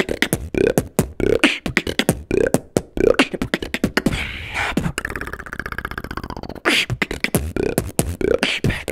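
Solo human beatboxing: a fast beat of kick drums, snares and clicks made with the mouth. About four seconds in the beat breaks for a hiss and then a held buzzing tone, and it starts up again near seven seconds.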